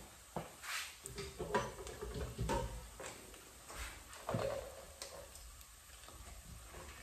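Scattered light clicks and knocks of kitchen containers and utensils being handled on a countertop.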